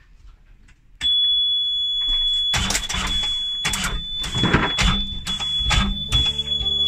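Yanmar 55 marine diesel being started: the engine panel's alarm buzzer comes on with a steady high tone about a second in, then the starter cranks the engine in uneven surges.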